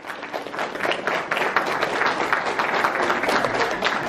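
Audience applauding: many hands clapping, building up over the first second and then holding steady and loud.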